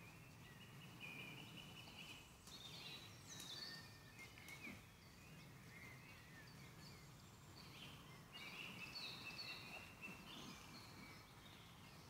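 Faint woodland birdsong: several birds giving high trilling phrases and chirps over a low, steady background hum.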